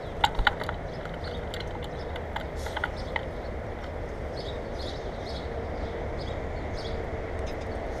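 A bird landing on a seed-covered platform feeder, with two sharp knocks just after the start and lighter taps a few seconds later as it hops and pecks at the sunflower seeds. Small birds chirp briefly in the background throughout.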